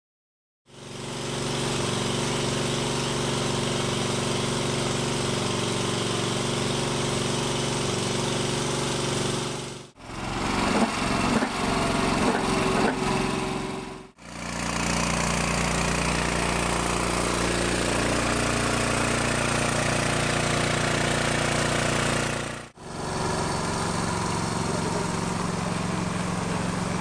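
Firefighters' portable motor pump running steadily as floodwater is pumped out through hoses, starting about a second in and heard across several cuts. Between about 10 and 14 seconds the steady sound gives way to irregular knocks and clatter. Near the end, water rushes out of the discharge hoses into a swollen stream.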